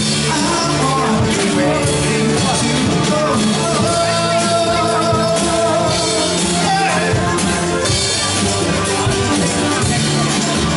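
Live band playing a rock-style song: drum kit, electric bass, guitars and keyboard, with a voice singing.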